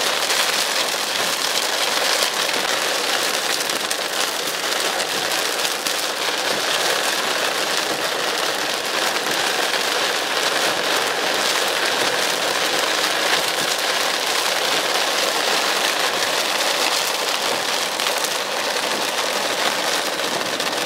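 Heavy rain falling on a car's windshield and roof, heard from inside the car: a steady, dense hiss of drops.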